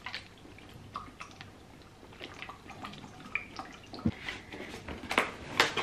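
Water swallowed in small gulps from a plastic bottle, with the liquid moving in the bottle, then scattered light taps and scrapes of a cardboard box being handled, sharpest a little before the end.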